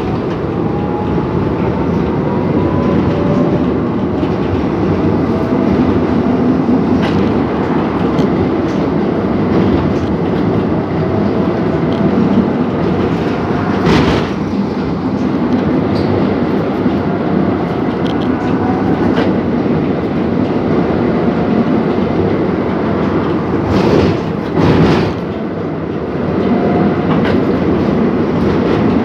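Tram running along its track, heard from on board: a steady rumble of wheels on rail with a faint motor whine rising in pitch now and then. There are a few sharp clacks, one about halfway through and two close together near the end.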